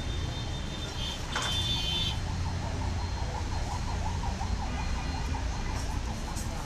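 A siren-like tone wavering up and down several times a second, over a steady low rumble, with a brief burst of high tones near the start.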